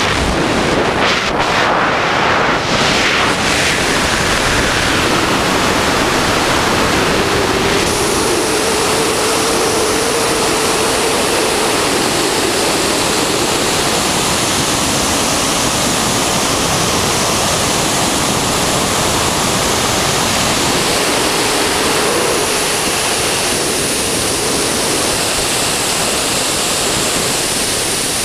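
Loud, steady rush of freefall wind buffeting the skydiver's camera microphone.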